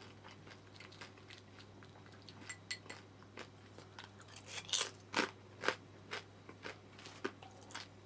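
Crisp deep-fried frozen gyoza being bitten and chewed: a run of irregular crunches, loudest about five seconds in, over a faint low hum.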